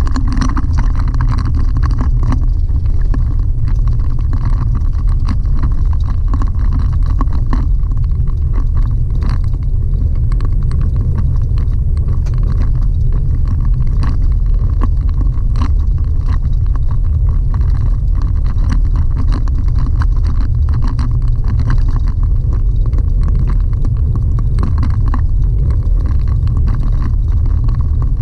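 Chevrolet Colorado ZR2 pickup driving on a gravel dirt road, heard from inside the cab: a steady low rumble of tyres and road noise, with scattered small clicks and rattles.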